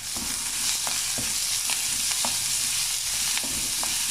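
Chopped onion sizzling in hot oil in a kadai, with a spatula clicking and scraping against the pan several times as it is stirred.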